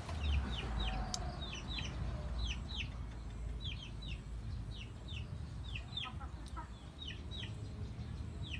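Chicks peeping: short, high, downward-sliding chirps repeating two or three times a second, over a low rumble.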